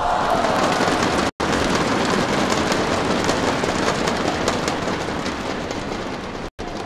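Arena crowd applauding and cheering after a badminton rally ends, starting suddenly with a brief swell of shouts and then steady clapping that fades slightly. The sound cuts out to silence twice, very briefly.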